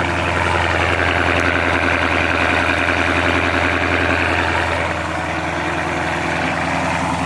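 Dodge Scat Pack's 392 HEMI V8 idling fast just after a cold start in freezing weather, a steady deep exhaust note that eases down slightly about five seconds in as the high idle begins to settle.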